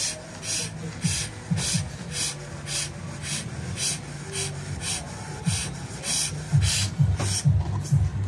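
A person blowing up a latex balloon by mouth: short, sharp breaths and puffs, about two a second, as the balloon inflates.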